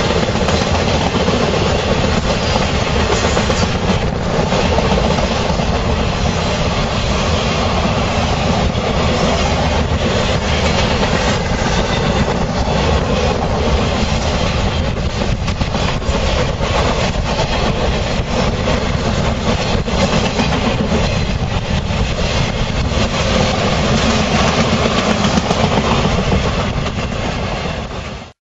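Freight train of loaded flatcars rolling past, a steady loud rumble of wheels on rails scattered with irregular clicks of the wheels over the rail joints. The sound cuts out abruptly right at the end.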